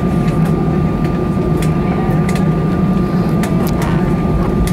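Cabin noise inside an Airbus A320 on the ground after landing: a steady low drone with a thin, steady high whine running through it, and scattered short clicks and rattles.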